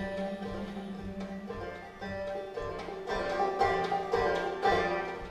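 Banjo played solo, a run of single picked notes ringing and decaying over a low note held through the first second or so.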